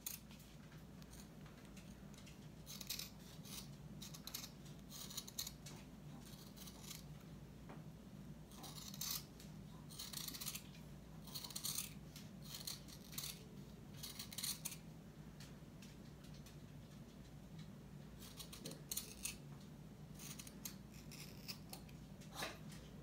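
Small scissors snipping through felt: short, irregular snips in clusters, with a quiet stretch of a few seconds in the second half, over a faint steady low hum.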